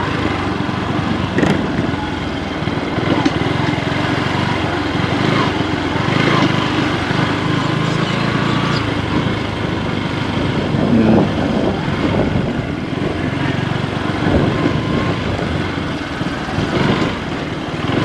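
Small motorcycle engine running steadily while the bike is ridden.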